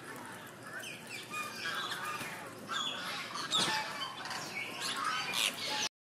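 A mixed crowd of birds calling, with many short overlapping chirps and squawks, some sliding in pitch. It cuts off suddenly near the end.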